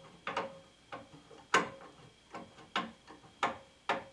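A screw on a miter saw's spindle guard being tightened by hand with a tool: a string of sharp clicks, unevenly spaced at roughly two a second.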